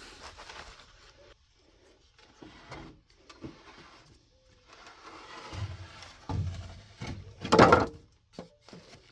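Scattered knocks and scrapes of work being handled, with one louder rustling, scraping burst about seven and a half seconds in.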